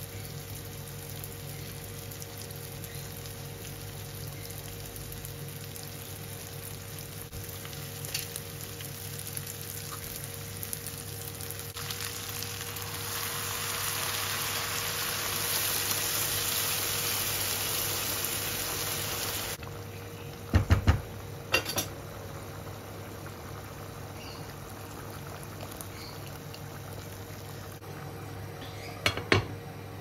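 Food frying in butter in a pan on a gas stove, with a spatula stirring. A louder hiss swells about halfway through and cuts off suddenly, and a few sharp knocks of a utensil against the pan follow near the end.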